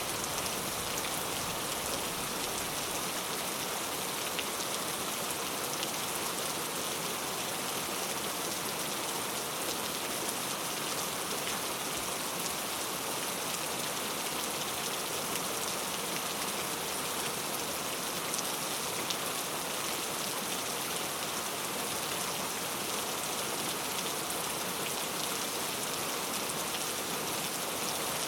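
Steady heavy rain falling on a surface, an even hiss with scattered drop ticks.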